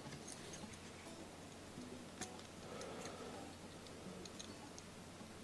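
Quiet room tone with a low steady hum and a few faint, scattered clicks.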